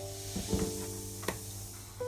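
Background music of held notes that change every half second or so over a steady low drone, with two faint clicks and a light hiss from raw chicken being handled in a bowl of water.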